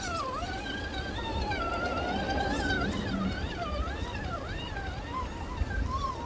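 Electric motor and gearbox of a 1/10-scale RC rock crawler whining, the pitch repeatedly rising and dipping as the throttle is worked, over a low rumble.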